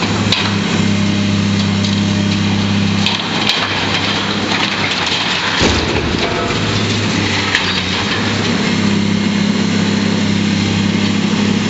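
Diesel crawler excavator running steadily while steel cracks and gives way, then a loud crash about five and a half seconds in as a steel silo and its leg frame hit the ground, with rattling debris after. The excavator engine runs on strongly near the end.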